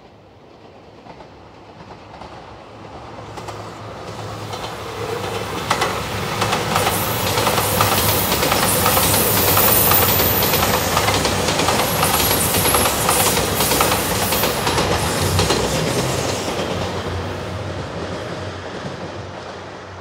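JR Shikoku 2700 series diesel limited express train passing by. The sound builds over several seconds, is loudest in the middle with its wheels clacking rapidly over the rail joints, then fades away.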